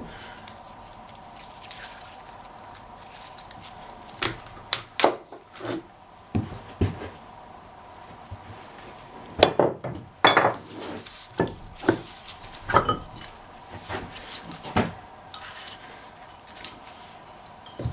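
Metal axle parts being handled during teardown: scattered clanks, clinks and knocks, starting about four seconds in and coming thickest around the middle.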